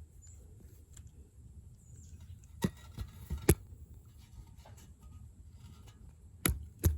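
About four sharp knocks and clicks from handling a cast-iron Hunter Original ceiling fan motor, two near the middle and two near the end, over a low steady hum.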